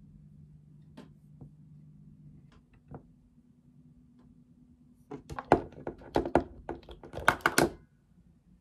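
A quick run of sharp plastic clicks and knocks lasting about three seconds, starting past the middle: a small white wireless-earbud charging case being handled, opened and set down on a desk. A few soft taps come before it.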